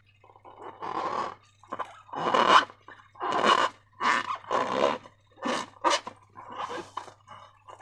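Slime being squeezed and squished by hand, a run of wet squelching bursts about every half second to a second.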